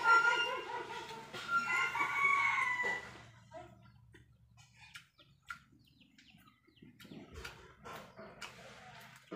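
A rooster crowing, two long calls in the first three seconds, followed by faint scattered clicks.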